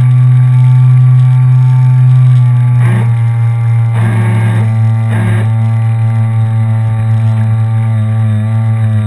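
The motor of a radio-controlled model tug boat running at a steady speed, a loud, even hum. Three short noisy bursts come in between about three and five and a half seconds in.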